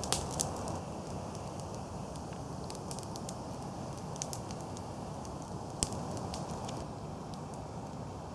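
Wood campfire burning between two dry logs: a steady hiss of flame with scattered sharp crackles and pops.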